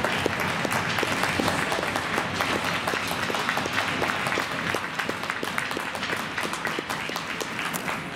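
Crowd applauding, with many quick claps overlapping.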